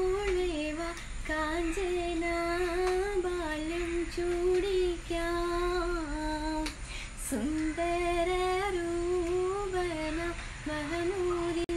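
A woman singing a melody solo without accompaniment, holding long notes with a slight waver. The pitch dips sharply and briefly about seven seconds in.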